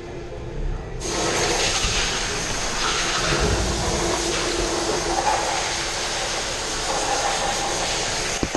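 A loud, steady hiss that starts abruptly about a second in and cuts off suddenly near the end.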